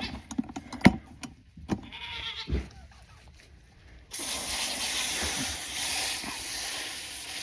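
Farm goat bleating briefly among scattered knocks and handling sounds. About four seconds in, a steady rushing noise starts suddenly and runs on.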